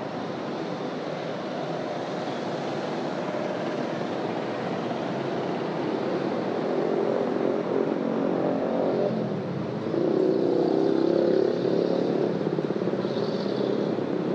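Street traffic on a busy city road: a steady wash of engines and tyres, with a vehicle's engine drawing close and growing louder, loudest about ten seconds in.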